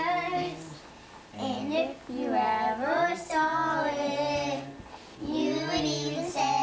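Children singing a song in sung phrases with held notes, pausing briefly between lines.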